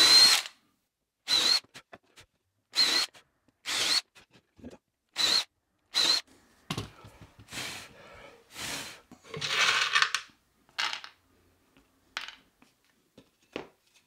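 Cordless drill with a countersink bit spinning up in five short whirring bursts over the first six seconds, countersinking screw holes in a plywood board. Then scattered knocks, scraping and rustling as wooden parts are handled on the bench.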